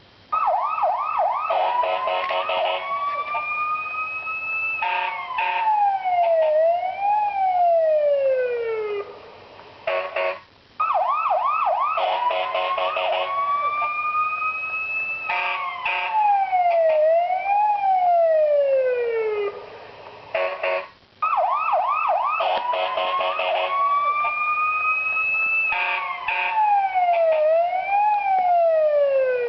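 Fire engine siren ringtone played three times. Each time it opens with quick warbling pulses and pulsed steady blasts, swings up into a rising wail, then winds down in pitch with a brief lift partway, before a short pause.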